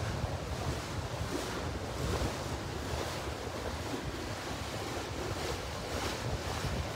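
Choppy canal water sloshing against a stone embankment close to the microphone, with wind rumbling on the microphone. A motorboat's engine comes closer under the water sound near the end.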